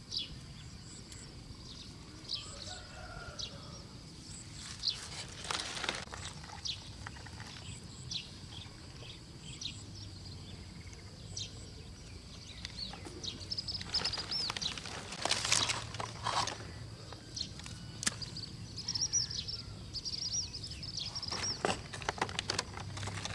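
Small birds chirping and twittering repeatedly in short high calls over a faint steady high insect drone, with scattered rustling and crackling noises.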